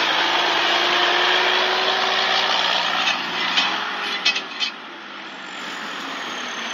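Tractor diesel engine running hard under heavy throttle, loud, with a dense rushing noise over it. A few sharp clicks come about three to four and a half seconds in, and after that the engine settles to a lower, steadier level.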